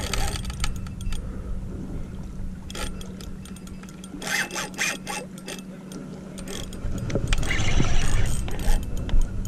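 Spinning fishing reel clicking and rattling in irregular clusters as it is worked and cranked while fighting a hooked stingray on the line.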